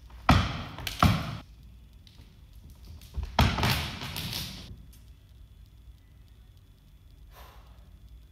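Juggling rings dropping onto a wooden floor: two clattering hits in the first second, then another hit about three seconds in that rattles on for over a second before settling.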